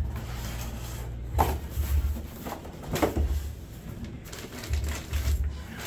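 Cardboard boxes and packing being handled and shifted, with rustling and a few sharp knocks, the clearest about one and a half and three seconds in.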